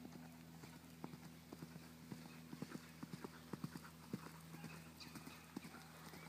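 Horse cantering on a sand arena: faint, uneven hoofbeats that grow loudest as the horse passes close, about three to four seconds in, then fade as it moves away.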